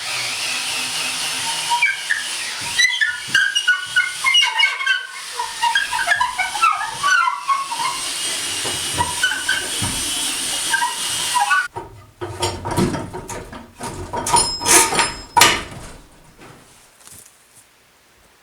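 A steady hiss with many short, high, irregular chirps scattered over it, which cuts off suddenly about twelve seconds in. A few seconds of sharp knocking and scraping with high ringing follow, then it falls almost quiet.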